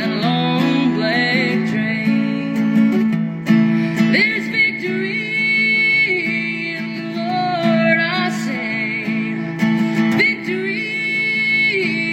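Music: acoustic guitar played with a voice singing.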